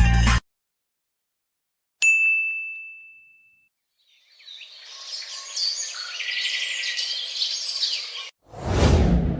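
A string of stock sound effects: a single high bell-like ding that rings out and fades over about a second and a half, then birds chirping for about four seconds, then a sudden loud noisy burst near the end.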